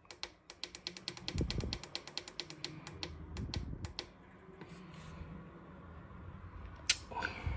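Rapid run of light plastic clicks, about seven a second for some three seconds, as the plus button on a Rointe Kyros electric radiator's control panel is pressed over and over to raise the set temperature. One more sharp click comes near the end.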